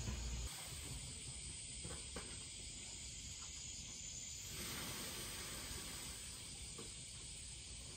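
Cicadas droning as a steady high-pitched hiss, growing fuller about halfway through, with a brief low rumble at the very start.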